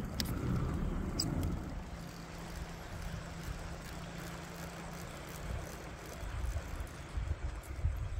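Wind rumbling on the microphone over water lapping against a plastic kayak hull, with two faint ticks in the first second and a half and a faint steady hum for a few seconds in the middle.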